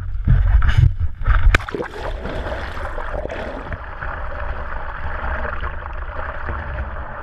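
Boat at sea: a steady rush of water and motor noise. Wind buffets the microphone through the first second and a half, with one sharp click at about a second and a half in.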